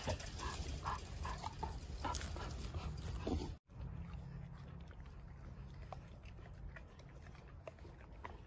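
A puppy whimpering, a string of short high whines. About a third of the way in the sound cuts out, and after it there is only a quieter low rumble with faint ticks.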